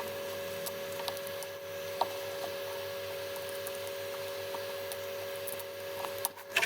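Heat gun running with a steady hum and whine, softening the adhesive under a phone screen, with a few faint clicks of a pry tool working along the edge; the gun cuts off near the end.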